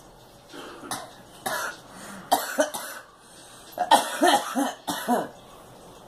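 A woman coughing in a series of fits: single coughs, then a pair, then a rapid cluster of hacking coughs about four seconds in, the loudest of the run.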